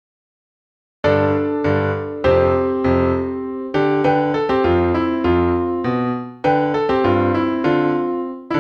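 Digital silence for about a second, then an electric piano starts playing a sequence of chords, each struck sharply and left to decay.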